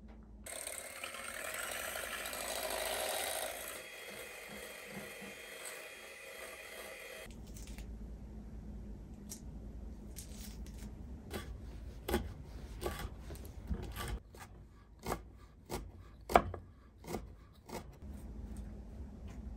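Mandarin peel being worked on a wooden cutting board, heard as irregular sharp clicks and taps, the loudest about two-thirds of the way through. Before this, for the first seven seconds, there is a bright sound of several steady high tones that cuts off suddenly.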